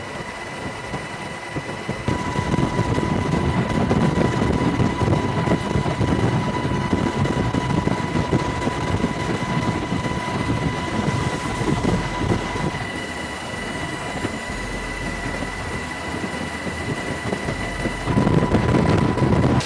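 A steady, loud mechanical rumble with a constant high whine running through it, stepping up in level about two seconds in.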